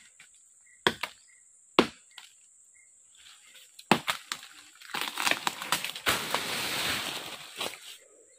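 Short machete (parang) chopping into a small tree trunk, a few sharp strikes about a second apart. From about five seconds in comes a long rustling crash of cracking branches and leaves as the cut tree falls through the brush.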